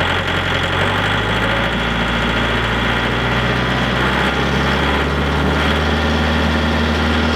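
Mahindra tractor's diesel engine running with the PTO engaged, driving a WoodMaxx PTO wood chipper as the throttle is raised toward 540 PTO rpm. The engine note shifts in steps about a second in and again around four to six seconds.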